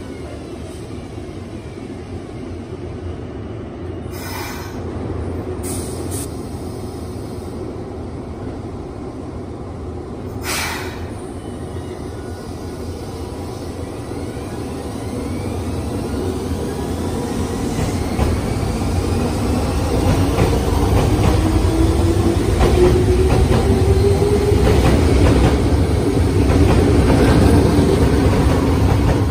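Tsurumai Line 3000-series subway train pulling out of the station and accelerating past, its wheel and motor rumble growing steadily louder as it nears. A rising motor whine comes in during the second half, and there are brief high hissing sounds about four, six and ten seconds in.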